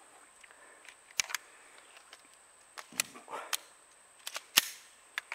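A 9mm Glock 17 pistol firing a string of several shots, irregularly spaced, the loudest near the end.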